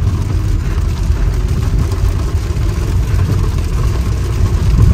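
Steady low rumble of a car on the move, heard from inside the cabin: engine and tyre noise on a rain-soaked road.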